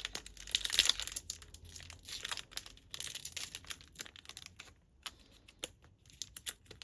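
Crinkling and rustling of a trading-card pack wrapper and cards being handled, with small clicks. It is loudest in the first second.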